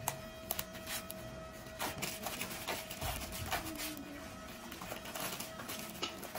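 Thin plastic bag and plastic wrap crinkling and rustling as they are handled, in a run of small crackles and taps that is busiest in the middle. A faint steady hum sits underneath.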